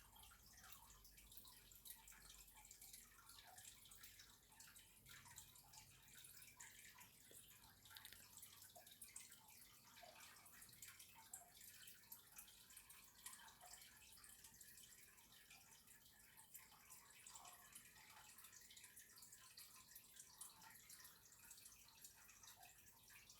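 Near silence: a faint hiss with scattered soft ticks, a few a second.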